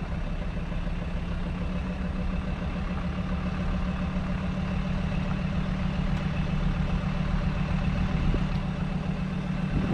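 Old ambulance camper's engine running steadily at cruising speed, a constant low drone with road noise, heard from inside the cab.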